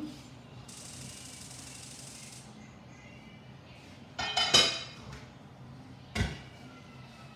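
Kitchenware being handled: a cluster of knocks with a ringing clink about four and a half seconds in, the loudest sound, then a single sharp thump about six seconds in.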